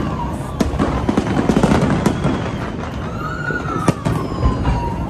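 Fireworks display: aerial shells booming and crackling over a steady low rumble, with sharp bangs about half a second in, around two seconds and near four seconds. A high whistling tone slides slowly down in pitch over the last two seconds.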